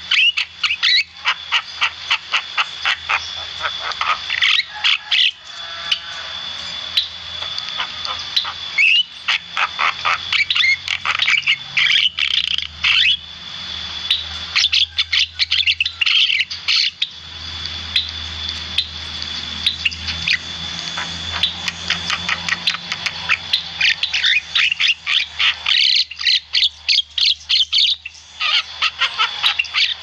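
Caged Javan myna in full song, a long run of rapid chattering clicks mixed with harsh squawky calls and whistled notes.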